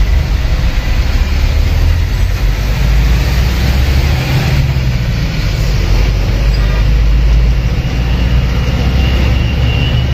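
Truck engine running steadily while driving, heard from inside the cab as a loud low drone, with road and traffic noise over it.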